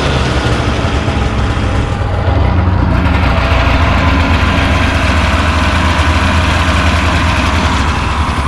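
Polaris 488 fan-cooled two-stroke twin of a 1992 Indy Trail Deluxe snowmobile idling steadily at about 1800 rpm, just started after being flooded. It grows a little louder about two seconds in.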